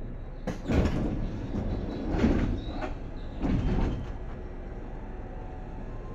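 Seibu 2000 series commuter train's air-operated passenger doors working at a stop: three loud bursts of hissing and rumbling about a second apart, over a steady low hum from the car.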